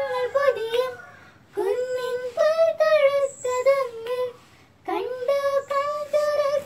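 Two girls singing together without accompaniment, in three phrases with short breaks between them, about a second in and about four and a half seconds in.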